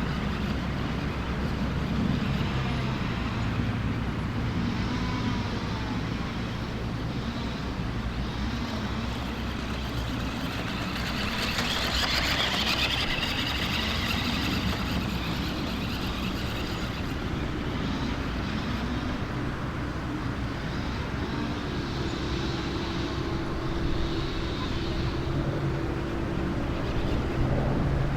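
Fastlane RC Dark Star toy monster truck driving, its electric motor and gears whirring steadily, with a louder, noisier stretch about twelve seconds in.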